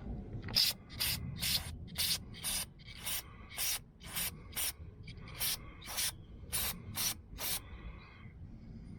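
Spark plug being cleaned with carb cleaner: a quick run of about fourteen short hissing strokes, roughly two a second, stopping a little before the end.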